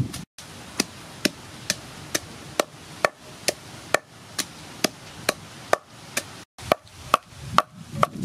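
Wooden pestle pounding young green tamarind in a wooden mortar. Steady, even knocks come a little over two a second as the tamarind is crushed to a paste.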